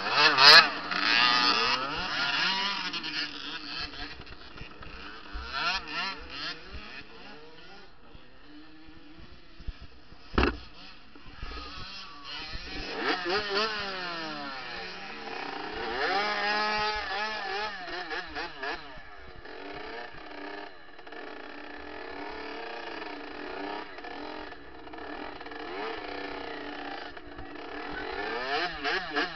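Kawasaki KX65 two-stroke dirt bike engine revving in repeated bursts, its pitch climbing and falling with lower running between, while the bike is down and stuck in deep mud. A couple of sharp knocks, the loudest right at the start and another about ten seconds in.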